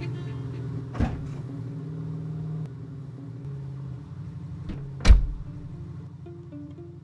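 Old Mercedes-Benz saloon's engine idling steadily, its pitch dropping a little under three seconds in. There is a sharp knock about a second in, and about five seconds in the car door slams shut, the loudest sound.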